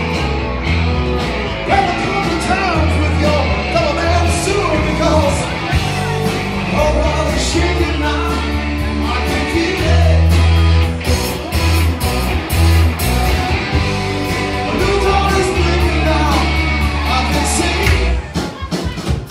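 Live rock band playing loud and close: a man singing over electric guitars, a bass line and a drum kit. The low bass notes stop shortly before the end, leaving the drums.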